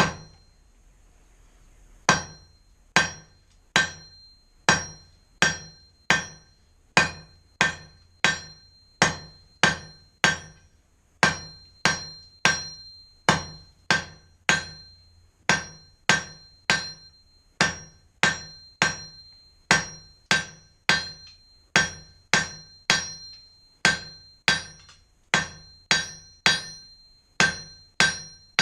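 Hand hammer striking hot steel on an anvil in a steady rhythm, about one and a half blows a second, starting about two seconds in; each blow leaves a short metallic ring. This is drawing out a taper on the bar.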